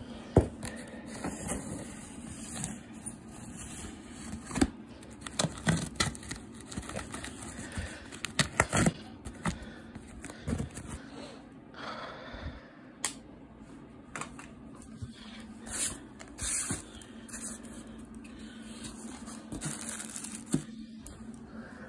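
A cardboard shipping box being opened by hand: packing tape slit with a blade and torn, with irregular scraping and crackling of tape and cardboard. Near the end a hand rustles a plastic bag and shredded-paper packing. A steady low hum runs underneath.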